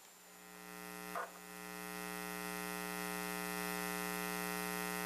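Steady electrical mains hum, a buzzing drone with many evenly spaced overtones, swelling over the first couple of seconds and then holding level. A brief soft sound breaks in about a second in.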